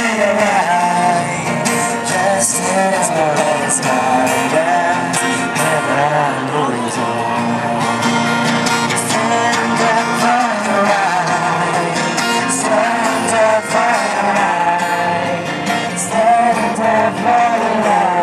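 Group of singers performing a song over acoustic guitar, sung into microphones and heard through a loudspeaker.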